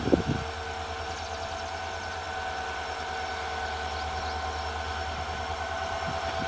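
WDP4 diesel-electric locomotive's 16-cylinder two-stroke engine running as it slowly pulls a passenger train away, a steady low drone with steady whining tones above it.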